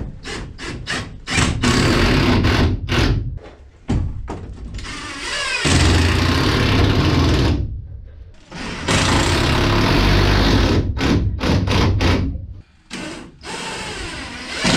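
Cordless power drill running in several quick short bursts, then in longer runs of two to three seconds each, working on the wooden wall studs.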